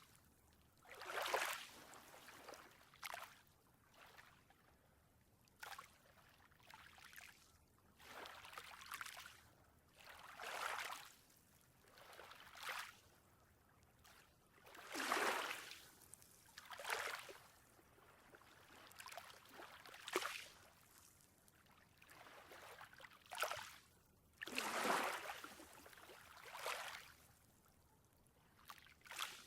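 Ocean waves washing in, heard as soft hissing swells that rise and fall away every second or two.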